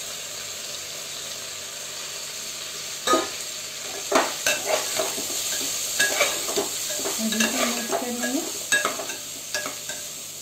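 Basmati rice frying in ghee with whole spices, cashews and makhana in a pressure cooker, a steady sizzle. From about three seconds in, a perforated steel ladle stirs it, with repeated clicks and scrapes against the pot.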